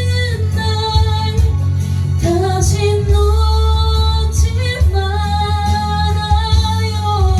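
A woman singing long held notes over a karaoke backing track with a heavy, steady bass.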